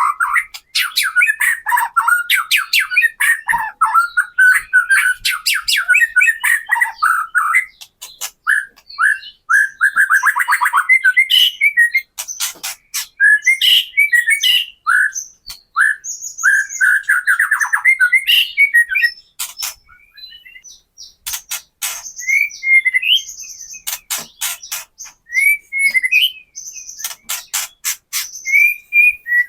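White-rumped shama singing a fast, varied song of rapid trills, short whistles and sharp crackling clicks (the 'kretekan' rattle), the clicks coming in thick runs in the second half.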